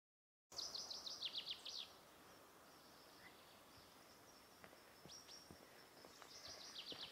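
Small songbird singing: a quick run of about eight high notes, each sliding downward, starting about half a second in, a few softer notes in the middle, and another such run near the end, over a faint steady hiss.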